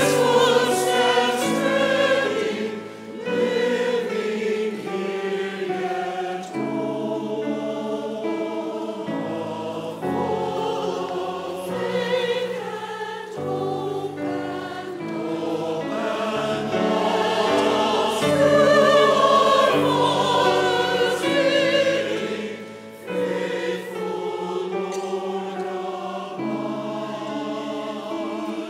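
Large mixed church choir singing a sacred anthem in harmony, accompanied by piano, in long held phrases with short breaks between them.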